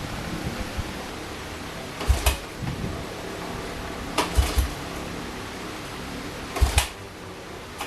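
The 1982 Honda ATC185s's recoil starter being pulled three times, about two seconds apart, each pull turning the single-cylinder engine over with two quick low thumps and a short rattle. The engine does not catch.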